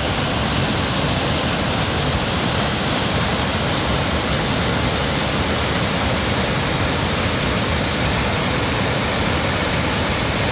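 Waterfall with a heavy flow of white water pouring over a rock ledge into a pool: a steady, unbroken rush of water.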